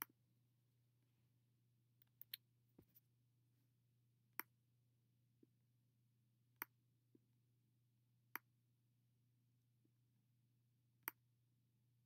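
Sharp computer mouse and keyboard clicks, single clicks a few seconds apart with a quick cluster about two to three seconds in, over near silence with a faint low steady hum.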